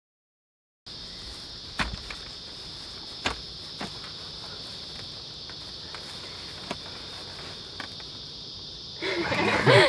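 Steady high-pitched drone of an insect chorus that starts about a second in, with a few faint knocks; a voice starts near the end.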